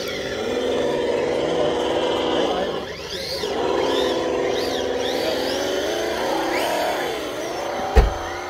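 RC rock crawler's electric motor and gearbox whining under throttle, the pitch dipping and rising again a few times as the throttle changes. A single sharp thump near the end.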